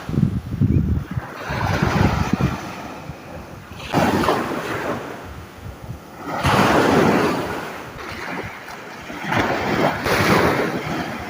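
Sea waves washing in, surging and fading every two to three seconds, with wind buffeting the microphone.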